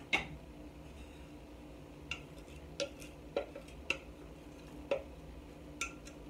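A wooden spoon knocking against a glass measuring cup while vegetables are scraped out of it into a pot: about seven light, sharp clicks at uneven intervals, the first one the loudest.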